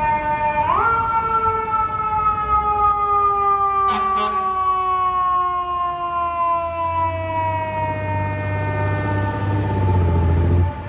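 An FDNY ladder truck's siren winds up sharply and then slowly winds down, its pitch falling steadily, as the truck responds to a call. About four seconds in there are two short sharp blasts. Near the end the truck's low engine rumble swells as it passes close, and the sound drops suddenly just before the end.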